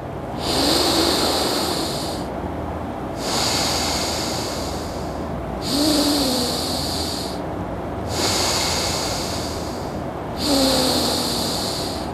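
A man breathing slowly in and out through his right nostril during nadi shuddhi breathing practice, his left nostril held shut with a finger. Five hissing breaths, each about two seconds long, with short pauses between.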